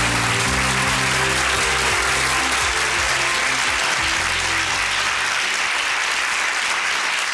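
Studio audience applauding over the show's walk-on music; the music ends about five seconds in and the applause carries on.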